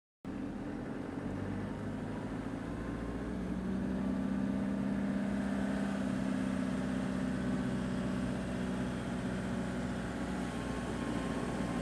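Vehicle engine and road noise heard from inside the cabin while driving, a steady hum that grows a little louder about three seconds in.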